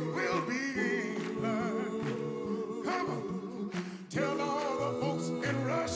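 A cappella vocal group singing: a lead voice over steady backing harmonies and a pulsing sung bass line, with no instruments. The sound drops briefly just after four seconds, then all the voices come back in.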